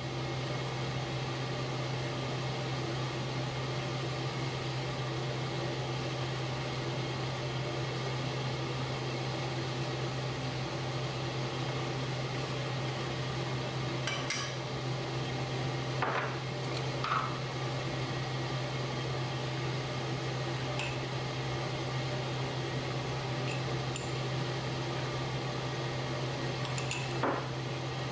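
Chicken stock simmering in a wok over a steady low kitchen hum, with a few light taps and scrapes of a spatula against the wok, the loudest about halfway through and near the end.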